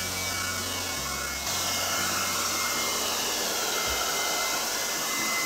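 Small battery-powered leaf blower running steadily, a rush of air with a thin high motor whine; it gets louder about one and a half seconds in.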